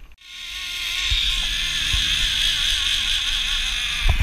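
Zipline trolley's pulleys rolling down the steel cable: a loud whirring hiss that builds over the first second and then holds steady. A couple of knocks come near the end.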